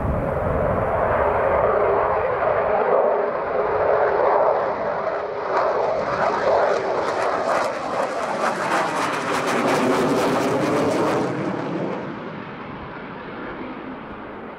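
Eurofighter Typhoon's twin EJ200 jet engines at full takeoff power as it climbs out, a loud steady jet noise. From about five seconds in a harsh crackle rides on top as it passes, the pitch drops, and the noise falls away near the end.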